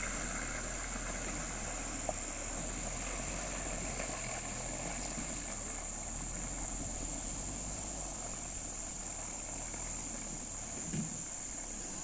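A vehicle engine running low and steady, fading after about eight seconds, under a constant high-pitched drone.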